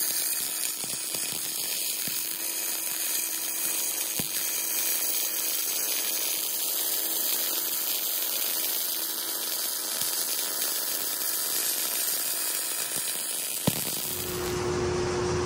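Automatic bore welder running a wire-fed arc around the inside of an excavator link bore: a steady crackling hiss with scattered small clicks, building up the worn bore with weld before it is line-bored back to size. Near the end a sharp click comes, and a steady hum takes over.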